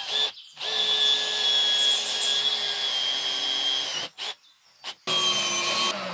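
Handheld power drill boring a hole through a small wooden block, its motor whining at a steady pitch. It runs in spurts: a brief one at the start, a long run of about three and a half seconds, two quick blips, then another short run that winds down near the end.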